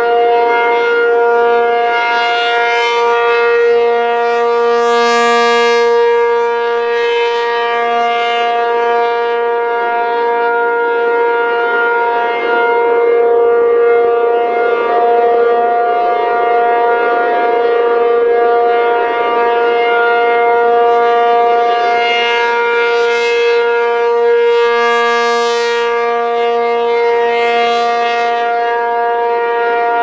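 ACA P-50 rotating electromechanical siren sounding the steady Alert tone at full speed: one loud, level pitch that swells and fades as the turning horn sweeps toward and away, brightest about five seconds in and again near the end.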